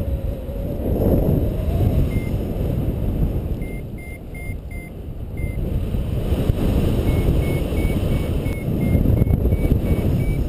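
Paragliding variometer beeping in short high tones over rushing wind on the microphone: a few scattered beeps at first, then a steady run of beeps from about two-thirds in, pitch edging up near the end, the climb tone that signals the glider is rising in lift.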